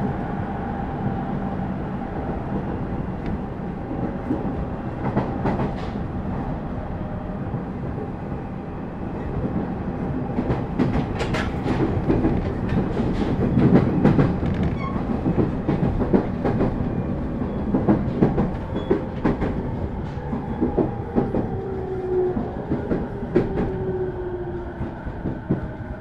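JR East 209 series 2100-subseries electric train heard from inside the car, running with a steady rumble and repeated clacks of the wheels over rail joints. In the second half the motor whine slides down in pitch as the train slows for the next station.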